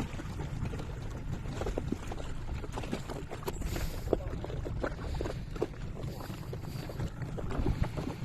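Boat under way on open sea: a steady low rumble with wind on the microphone and scattered short splashes and knocks.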